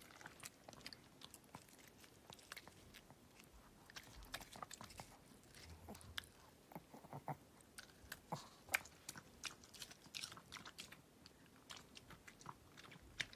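A Pomeranian chewing and smacking a strawberry: faint, irregular wet clicks and crunches, with one sharper click about nine seconds in.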